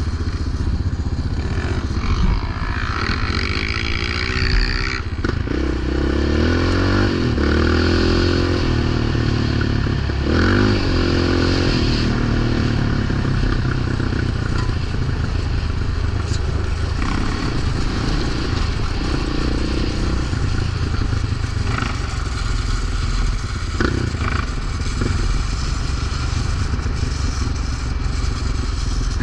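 Yamaha Raptor 700 quad's single-cylinder four-stroke engine running under way, revving up and down several times in the first twelve seconds, then running more steadily.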